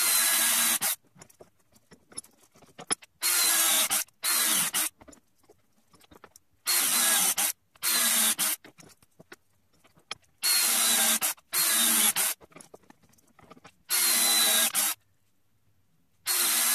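A handheld power tool run in short bursts of under a second, nine times, mostly in pairs, with quiet gaps between.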